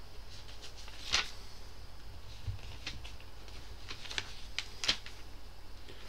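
A few light clicks and taps, the sharpest about a second in and several more close together near the end, over a low steady hum.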